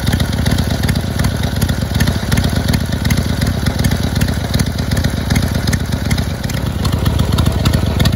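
1979 Harley-Davidson Ironhead Sportster's 1000cc V-twin, fitted with a copy S&S-style carburetor, idling steadily through its twin chrome pipes, with an even, loping beat.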